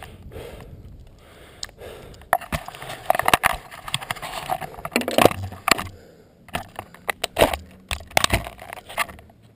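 Handling noise from a camera being moved and set down: rubbing against the microphone and, from about two seconds in, a run of sharp clicks and knocks.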